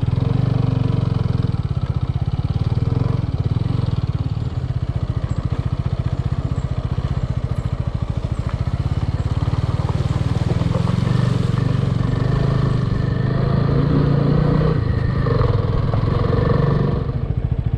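Motorcycle engine running steadily under way, its rapid, even firing pulse loudest in the low end, with a brief swell in level near the end.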